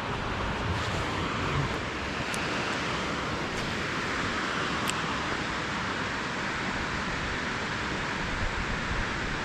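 Steady rushing of water pouring through a lake spillway, an even noise that does not let up, with a few faint ticks a few seconds in.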